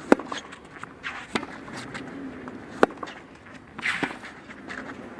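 Tennis ball struck hard by racket strings during a baseline rally on a clay court: sharp hits about every one and a half seconds, four in all, with shoes scuffing on the clay between them and a scraping slide around the last hit.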